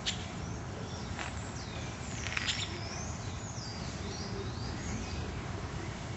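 Birds chirping: three short, sharp chirps in the first two and a half seconds, then a run of thin, sliding whistled calls, over steady background noise.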